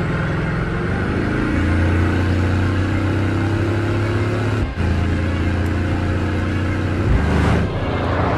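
Bugatti Chiron's quad-turbocharged W16 engine running hard under acceleration: its note climbs about a second in and then holds steady, cuts out sharply for an instant near the middle, and a rush of passing air swells and fades near the end as the car goes by.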